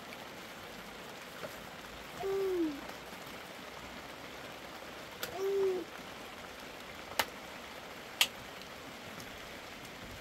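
Steady hiss of rain, with a bird's single low hooting note, falling slightly, heard twice about three seconds apart. Two sharp clicks follow about a second apart in the second half.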